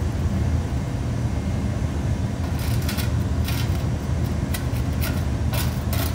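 Casting sand of fine silica and bentonite being rubbed by hand through a metal mesh sieve, short dry rasps from about two and a half seconds in, over a steady low rumble.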